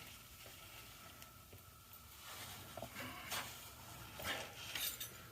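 Quiet room tone with a low hum and a few faint rustles and light knocks.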